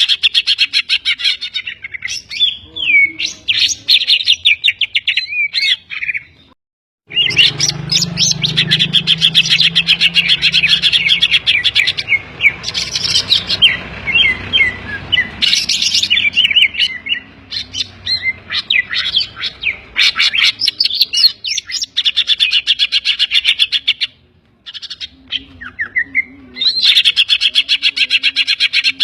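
Greater green leafbird (cucak ijo) singing loudly in fast chattering phrases and trills with quick whistled slurs, broken by two short pauses. Its song is filled with imitated calls of the kapas tembak and the tengkek kingfisher.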